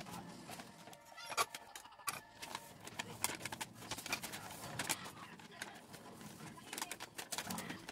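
Pink paper gift bag being handled and folded shut, giving irregular crinkles and taps.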